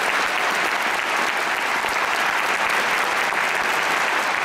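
Audience applauding steadily, a dense unbroken mass of hand claps.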